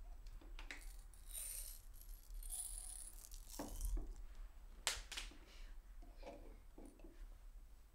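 Small glass jar of pills being handled: pills rattling inside and glass clinking, with a few sharp knocks as the jar is set down on the wooden dresser top.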